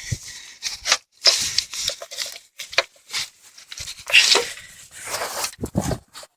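Hand tools scraping and grating against a corroded battery cable terminal as it is worked loose, in irregular rasping strokes with short pauses; the corrosion is holding the terminal fast on the post.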